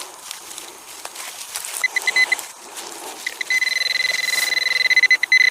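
Handheld metal-detecting pinpointer giving a few quick high beeps, then a steady unbroken high tone for about two seconds: it has closed in on a metal target in the dug soil. Soil and stubble rustle as it is worked through the hole before the beeping starts.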